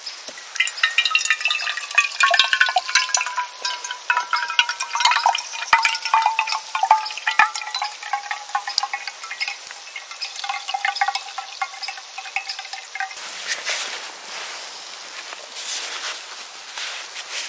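Metal cookware ringing and clinking with liquid during coffee preparation. A ringing tone slides slowly down in pitch over about thirteen seconds, with many small clinks, then stops abruptly.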